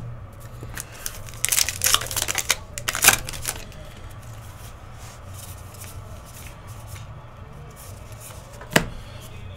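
Cardboard baseball cards being flipped and slid through by hand, a cluster of brushy rustles in the first few seconds and a single sharp tap near the end.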